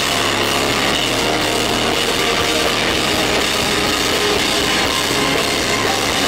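Loud live band music through a concert sound system, with keyboards and a steady drum beat.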